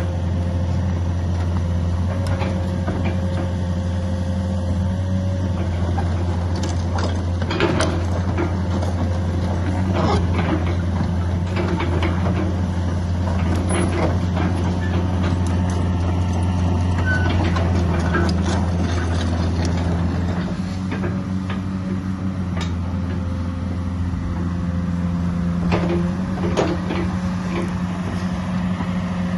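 Kubota KX151 excavator's four-cylinder Kubota diesel engine running steadily, with scattered short metallic knocks and clicks. The engine note changes about twenty seconds in, its deepest part dropping away.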